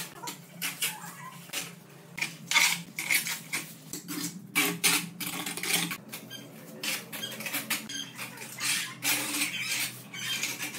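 Steel trowel scraping and slapping wet cement mortar across a concrete countertop in quick, irregular strokes.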